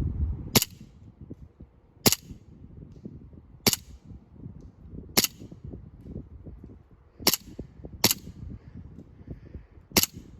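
Elite Force 1911 A1 airsoft pistol firing seven single shots, sharp pops about every second and a half, with two closer together about seven seconds in.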